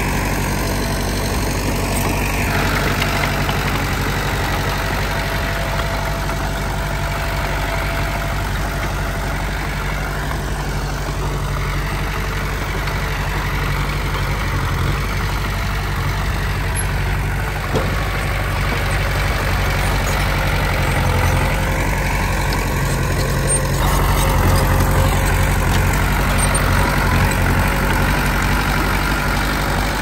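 Diesel engine of heavy earth-moving machinery running steadily at low revs. It grows a little louder and fuller over the last several seconds.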